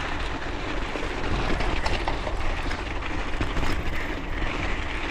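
Bicycle ridden over a snowy trail: steady rumble of the tyres on snow and wind on the microphone, with scattered small knocks and rattles from the bike.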